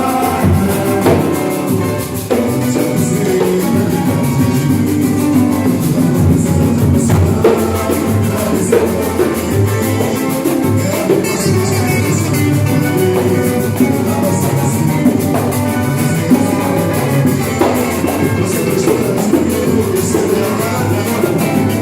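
A music group playing: drums and percussion with a steady beat over pitched instruments, with no pauses.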